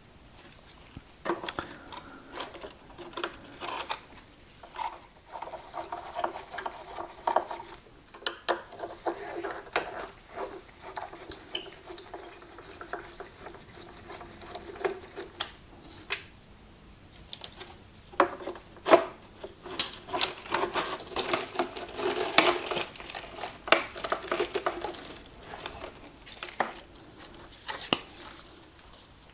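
Screwdriver and pliers prying and scraping at the charred wiring and casing of a burned electric unicycle: irregular metal clicks and knocks, with stretches of scraping and rustling as parts and wires are worked loose.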